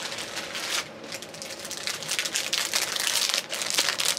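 Small clear plastic bags crinkling and crackling as they are handled, busier and louder in the second half.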